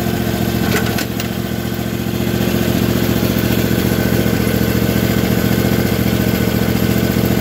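Briggs & Stratton Vanguard OHV twin-cylinder engine running steadily at idle, with excessive blow-by pushing exhaust into the crankcase and out around the open carburetor. The owner takes this for a blown head gasket, with one cylinder far lower on compression than the other.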